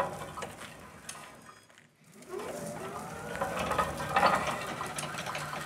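Electric motor and gearing of a BT LSF 1250/11 electric pedestrian stacker running. Its whine rises as it speeds up about two seconds in, then carries on steadily with mechanical rattle.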